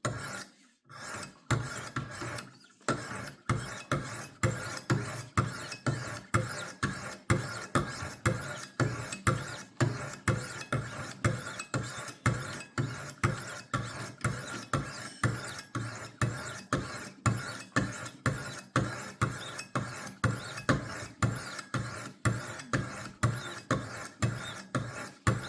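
Wicked Edge WE60 sharpening stones stroked along a steel knife edge, a steady rasping rhythm of about two to three light strokes a second that starts about a second and a half in.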